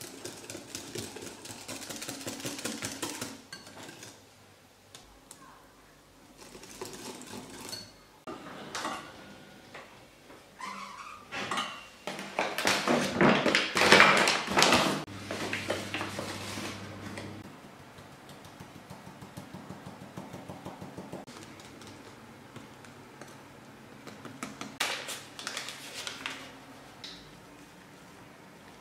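Wire whisk beating batter in a glass mixing bowl, then kitchenware clattering as things are handled in a drawer, loudest about halfway through; later a run of light, even ticks and a few more brief clinks.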